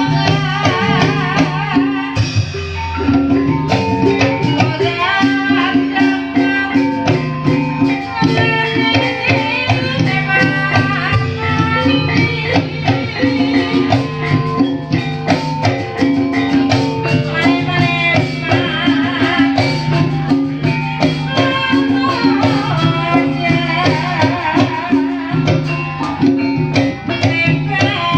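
Live Javanese gamelan music for an ebeg horse dance: struck metal percussion and drums playing without a break under held low notes, with a wavering high melody line above.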